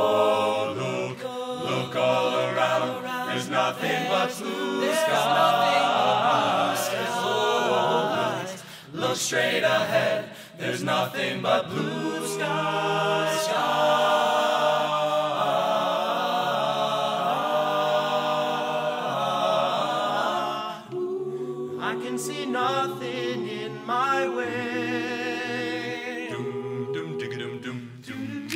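Male a cappella group singing in close harmony, voices only, with no instruments. The singing thins out briefly about two-thirds of the way through, then builds again.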